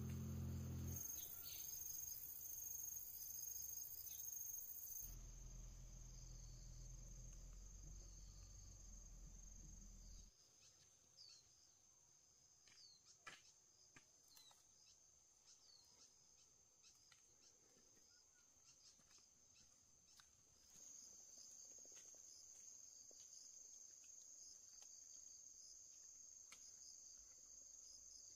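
Crickets trilling faintly and steadily at a high pitch. A low hum lies under them for the first ten seconds, and a few light clicks and taps come through after that.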